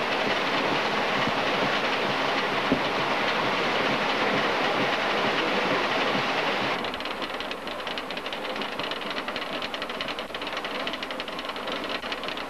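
Stone flour mill running: a steady rushing, clattering noise. About seven seconds in it turns quieter and becomes a fast, dense rattle as the millstone turns.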